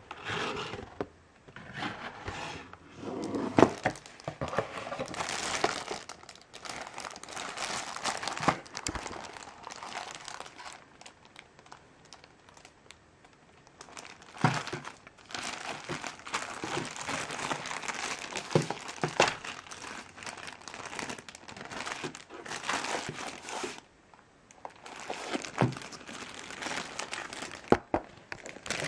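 Thin clear plastic bag crinkling and rustling around a wireless keyboard as it is handled and unwrapped from its packaging, with scattered sharp clicks and knocks. It goes quieter for a few seconds near the middle.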